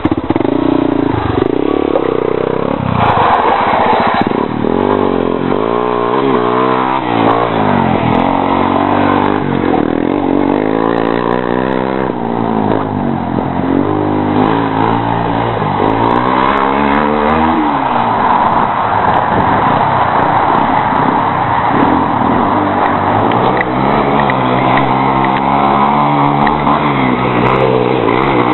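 Yamaha Raptor quad's single-cylinder engine through an aftermarket exhaust, revving up and falling back again and again as it is ridden hard, the pitch climbing and dropping every few seconds.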